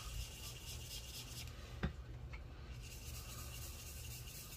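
Ink blending brush rubbed lightly back and forth over paper, a soft scratchy brushing, with one small tap a little under two seconds in.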